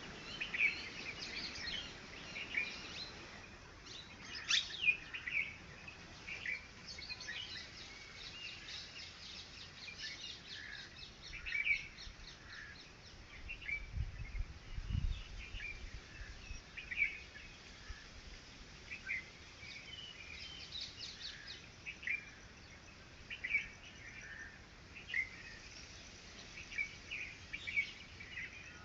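Birds chirping outdoors: many short, scattered calls and a few quick trills, with two low thumps about halfway through.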